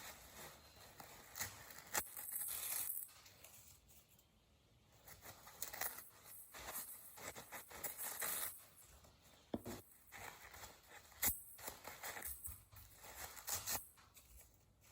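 Paper towels being scrunched and torn close to the microphone: irregular rustling and ripping that comes and goes, with two sharp clicks, one about two seconds in and one about eleven seconds in.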